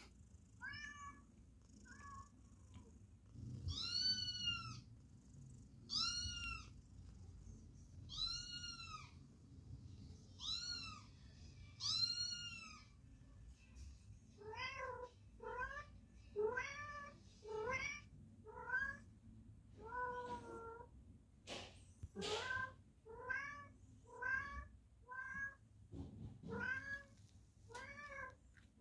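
Cat meows, repeated: high, arching meows about every two seconds, then from about halfway a quicker run of shorter meows, roughly one and a half a second.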